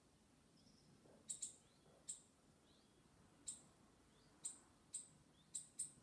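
Sharp, high clicks at irregular intervals, about eight in all and some in close pairs, over a few faint bird chirps in a quiet background.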